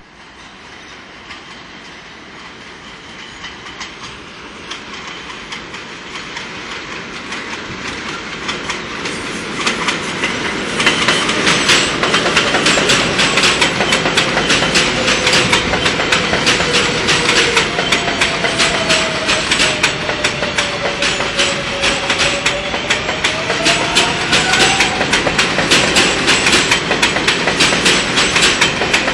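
R142A subway train on elevated track, approaching and then passing close by. A rumble grows louder over about the first ten seconds, then gives way to a loud, steady rattle of wheels clacking over the rail joints as the cars go by. Midway through the pass, a tone dips and then rises again.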